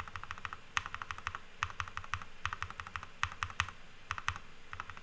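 Keycap on a freshly lubed Akko Glare magnetic switch in a Monsgeek M1 V5 TMR keyboard pressed repeatedly in quick bursts of clicks. With grease on the housing and stem, the presses are muted, with no rattle.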